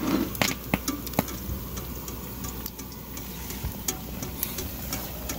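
Eggs frying in hot oil in a pan on a small camp stove, the oil crackling with scattered sharp pops, most of them in the first second or so.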